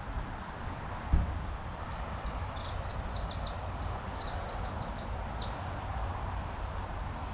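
A small songbird singing a long, rapid, high-pitched jumble of notes for about five seconds, over a steady hiss of rain in the woods. A single dull thump comes about a second in.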